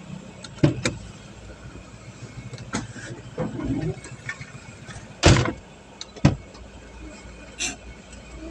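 Car running with a steady low hum, broken by several sharp knocks and thumps, the loudest about five seconds in.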